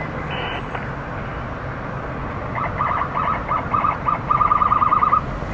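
Emergency vehicle horn sounding in short blasts over a steady traffic rumble. The blasts begin irregularly about two and a half seconds in and close up into a rapid stutter near the end.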